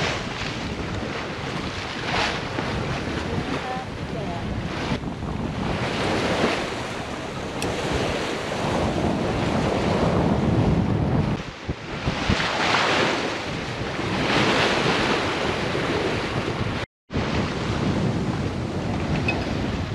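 Wind buffeting the microphone over waves and water rushing past the hull of a sailboat under sail in a fresh breeze. The sound swells and eases every few seconds and cuts out for an instant about three quarters of the way through.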